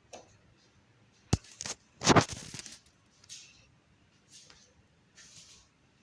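Handling noise: a sharp click, a second click, then a louder clattering knock about two seconds in, followed by faint rustling.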